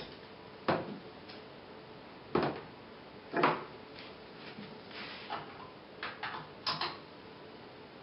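Several sharp plastic clicks and knocks as a mains plug is pushed into a power strip to power up a CRT TV through a series-bulb tester. The loudest come about a second, two and a half and three and a half seconds in, with softer clicks a little later.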